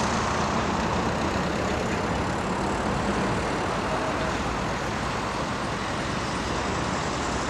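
Steady road traffic noise: vehicles and their tyres on a busy street, an even, continuous rush.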